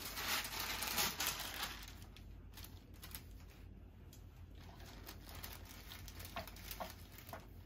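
A sheet of paper crackling as it is laid over a T-shirt and smoothed flat by hand, loudest in the first second and a half. Then a clothes iron is pushed over the paper with faint rustling and a few light ticks.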